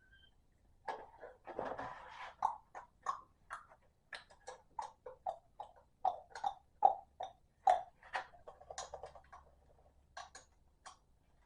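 Hand wrench clicking and knocking as a small-block Chevy's intake manifold bolts are run down, a steady run of short sharp clicks about two a second, with a rougher scraping stretch about two seconds in.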